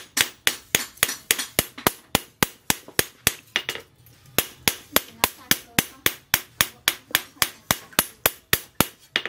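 Hand hammer striking a steel sickle blade held in tongs on a steel post anvil: a steady run of sharp, ringing metal-on-metal blows, about three to four a second, with a short pause about four seconds in.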